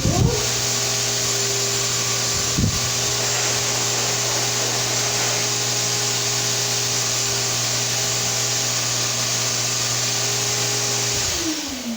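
Shop-Vac Super 1300 7.5-gallon wet/dry vacuum running steadily at full speed with the blower attachment fitted, a loud hum with a rushing hiss, with a couple of brief knocks early on. Near the end it is switched off and the motor whine falls in pitch as it spins down.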